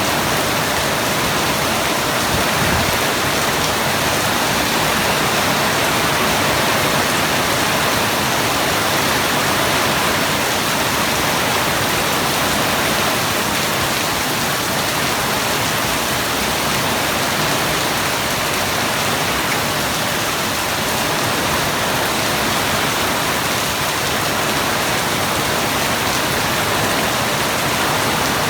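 Steady heavy rain falling, a dense even hiss of drops on surfaces, with a brief low thump about three seconds in.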